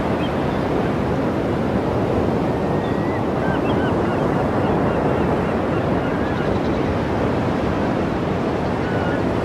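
Gale-force wind blowing hard across the microphone over heavy surf breaking on the shore: a loud, steady rush of noise with no letup.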